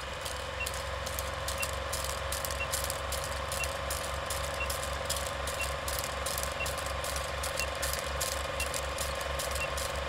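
Old-film countdown sound effect: a film projector running with a steady whir and fast clatter, film crackle and pops, and a short high blip once a second. It cuts off suddenly at the end.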